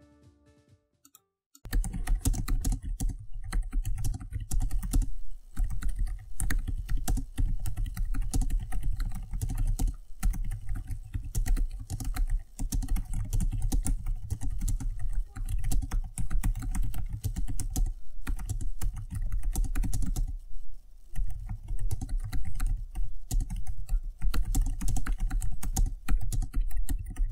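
Rapid, continuous typing on a Jelly Comb K62B-3 wireless keyboard with low-travel plastic keys, a dense run of soft key clicks starting about a second and a half in, broken by a few short pauses.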